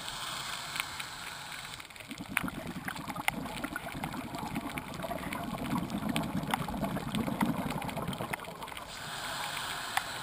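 Scuba diver breathing through a regulator, heard underwater: a hissing inhale, then a long exhale of bubbles about two seconds in, then another hissing inhale near the end. Scattered sharp clicks run throughout.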